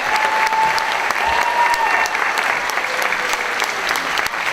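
Theatre audience applauding steadily, with a few voices calling out over the clapping in the first two seconds.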